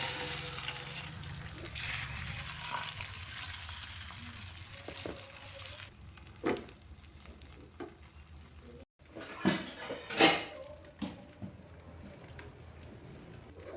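Food frying in hot oil in a pan, a steady sizzle for about six seconds; then, after a short break, a few sharp knocks and clinks of a utensil against the pan or dishes, the loudest about ten seconds in.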